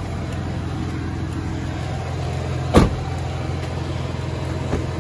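A 1997 Toyota Land Cruiser Prado's 3.4 L V6 idles with a steady low hum. A car door shuts with a single thump about three seconds in, and there is a small click near the end as the rear door handle is pulled.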